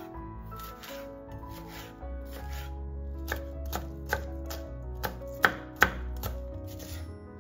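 Kitchen knife chopping on a cutting board, a run of about seven sharp chops in the second half, over background music.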